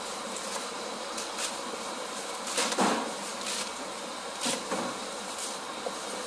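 Kitchen knife chopping cabbage on a wooden cutting board: a handful of irregular, sharp chops over a steady background noise.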